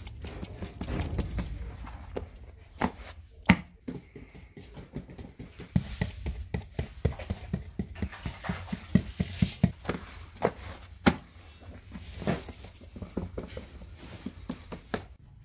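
Fingers pressing and patting a round of flatbread dough on a cloth, giving a quick, irregular run of soft taps with a few sharper clicks.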